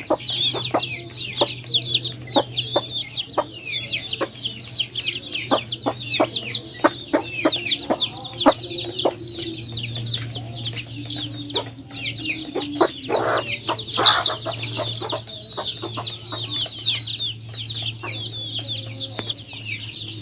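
A crowd of chicks peeping: many short, high, downward-sliding calls overlapping without a break, with scattered sharp taps and a steady low hum underneath.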